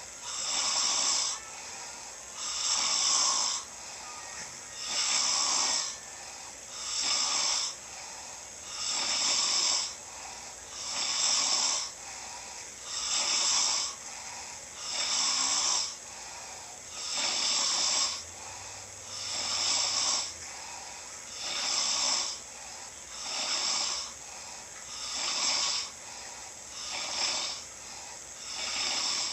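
A person snoring in a steady rhythm, one snore about every two seconds.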